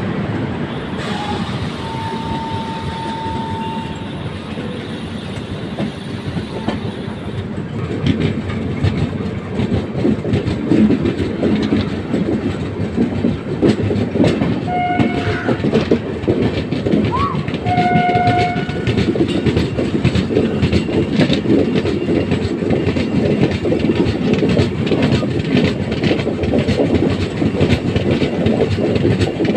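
Train running with wheels clattering over rail joints; the clatter gets louder about a quarter of the way in. Around the middle come two short blasts of a WAP-7 electric locomotive's horn, about three seconds apart. Earlier, a single steady tone is held for about two seconds.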